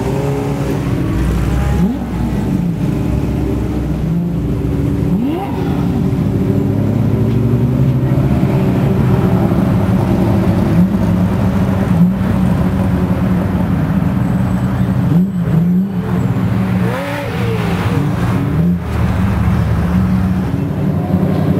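Several exotic sports car engines running together: a steady deep drone with short rising revs every few seconds as the cars blip the throttle and pull away.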